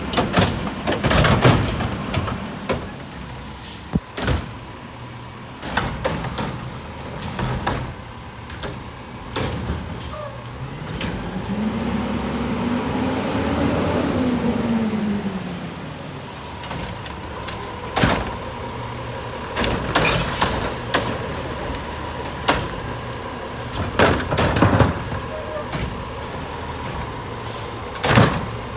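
Garbage truck working a collection stop: its engine revs up and falls back once near the middle. Repeated sharp bangs and clanks sound throughout, with several brief high squeaks.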